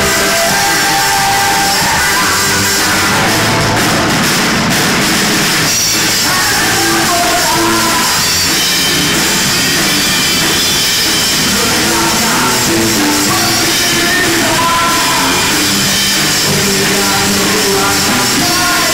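Rock band playing live and loud: electric guitar through a Marshall amplifier over a drum kit, without a break.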